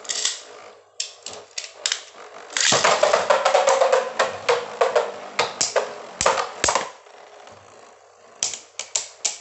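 Two plastic Beyblade spinning tops clashing and rattling against each other and the walls of a plastic stadium. Rapid clicking collisions run from about three seconds in to seven seconds, then a brief lull, then scattered knocks near the end.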